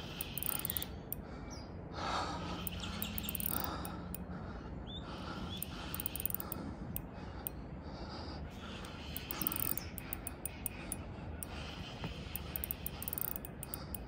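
Spinning reel being cranked, its gears clicking as line is wound in against a hooked trevally, with birds chirping in the background.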